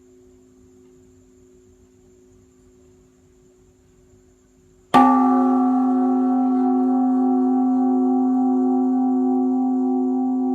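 A great Buddhist temple bell (đại hồng chung) is struck once about five seconds in and rings on loudly with a slow, wavering hum. Before the strike, the faint fading tail of an earlier stroke is still sounding.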